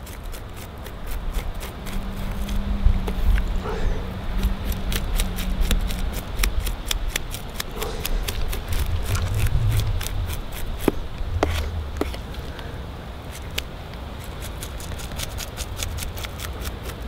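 Scales being scraped off a northern pike against the grain: quick repeated scraping strokes, several a second, with small sharp clicks as the scales pop off.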